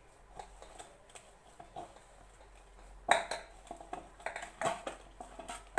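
Oiled hands kneading soft, sticky dough in a stainless steel bowl: faint squishing and slapping with scattered knocks against the metal, the loudest about three seconds in and again near the end.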